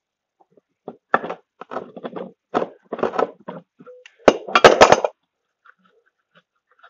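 Pliers scraping and knocking at a metal part to work a small brass piece loose, then a quick cluster of four or five sharp metal strikes about four seconds in.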